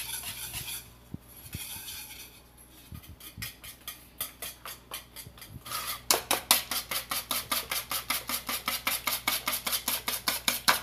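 Cake batter of beaten eggs, oil and powdered sugar being mixed by hand in a steel bowl, the utensil scraping and clinking against the metal. A few scattered clinks at first, then from about six seconds a fast, even beating rhythm of about five strokes a second.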